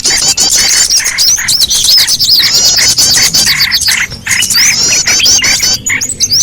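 Bird-lure recording of small songbirds: a loud, dense chorus of rapid high chirps and twittering calls with lower notes beneath, running without pause. It is a trapping call played to draw small birds such as bulbuls.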